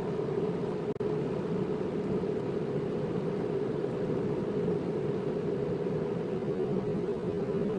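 Car cabin noise while driving: a steady drone of engine and tyre noise, heard from inside the car.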